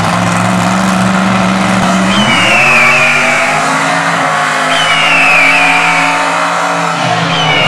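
Supercharged big-block V8 of a tractor-tire Chevy Colorado mud truck, running steadily and then revving up about two seconds in as the truck launches, holding high revs after. A high whine that falls in pitch sounds three times over it, about two and a half seconds apart.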